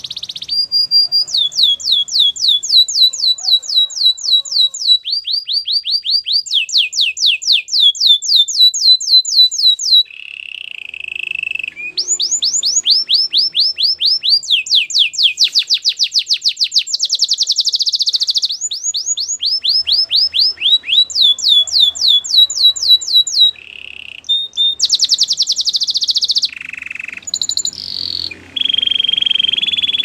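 White domestic canary singing a long, continuous song of rapid trilled phrases: each phrase a fast run of identical notes that sweep down in pitch, several a second, switching to a new repeated note every second or two. There is a brief pause about ten seconds in, and lower, buzzier rolls near the end.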